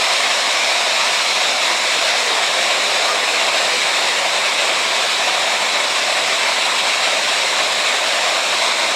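Steady, even rushing noise with no breaks or distinct events, like water falling.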